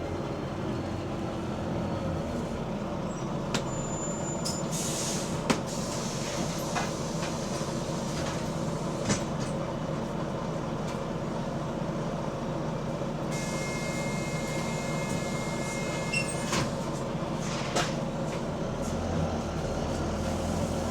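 A double-decker bus running in service, heard from the driver's cab: steady engine and drive noise with occasional sharp knocks and rattles from the bodywork, and a brief hiss about five seconds in.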